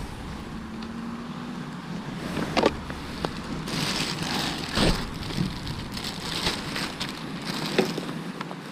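Rustling and light knocks of a plastic bag of sliced bread and a plastic bait tub being handled, the crinkling loudest in the middle, over a steady wind rumble on the microphone.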